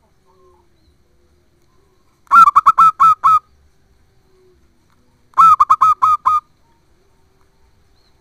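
Zebra dove (perkutut) singing: two phrases of about six quick, clipped cooing notes each, the first a little over two seconds in and the second about three seconds later.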